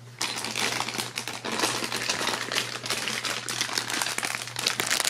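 Clear plastic bags of plastic game pieces crinkling and rustling as they are handled, with a dense run of small clicks and rattles.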